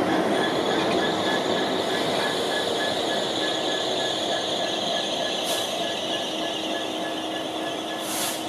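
Carriages of a new Class 803 electric train rolling past while towed unpowered, wheels on the rails with a steady high squeal, slowly fading. Two short hisses come about five and a half and eight seconds in.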